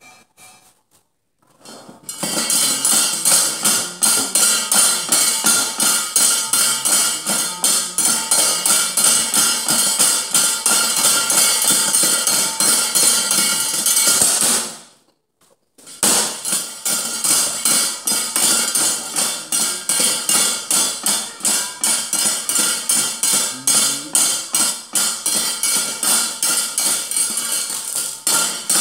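Gamelan-style percussion music: rapid, even strikes on metal with steady ringing tones. It starts after a few faint knocks about two seconds in, breaks off for about a second halfway through, and then resumes.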